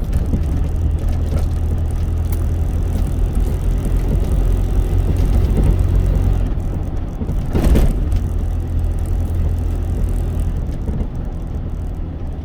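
Cargo truck's engine and road noise heard from inside the cab while driving: a steady low drone. A short thump stands out about two-thirds of the way through.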